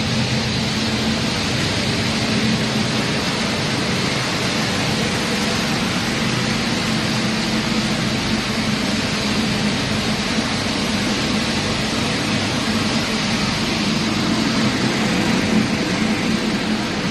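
Pet food extrusion line machinery running steadily: electric motors and a blower give a constant low hum under an even hiss, with dry kibble rattling through a vibrating sieve and chute.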